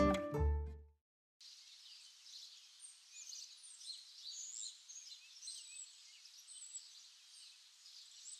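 Small birds chirping and twittering, many short high calls overlapping. Before them, plucked-string music breaks off about a second in.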